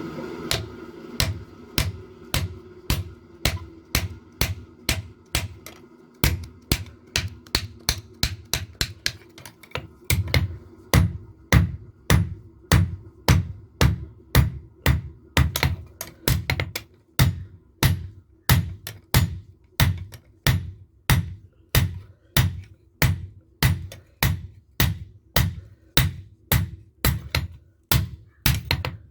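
Blacksmith's hand hammer striking leaf-spring steel on an anvil while forging a knife blade. The blows come in a steady rhythm of about two sharp strikes a second.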